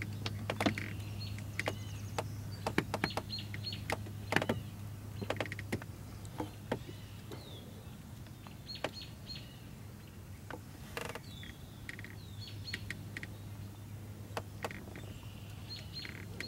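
Small birds chirping in short, repeated high notes over a steady low hum, with scattered sharp clicks and knocks throughout.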